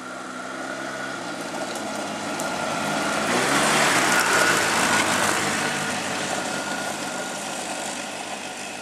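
An ATV (four-wheeler) engine and knobby tyres on a gravel dirt road, approaching, passing close by about four seconds in, then fading as it drives off, with the engine's pitch dropping as it goes past.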